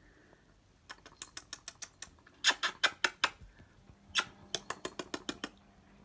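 Rapid sharp clicks and taps on the phone, close to its microphone. They come in three bursts: a quick run about a second in, four louder taps around the middle, and another quick run near the end.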